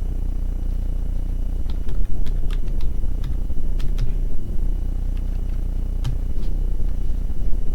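Scattered clicks of a computer keyboard and mouse, a dozen or so irregular taps, over a steady low hum.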